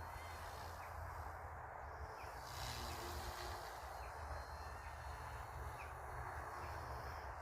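Outdoor ambience with a fluctuating low rumble of wind on the microphone and a few faint, short bird chirps.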